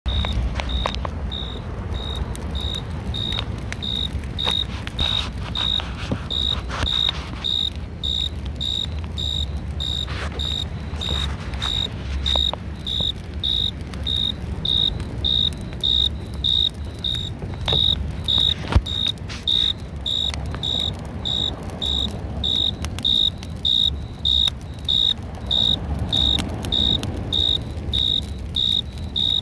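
Cricket chirping steadily, short high chirps about two a second, over a low steady rumble.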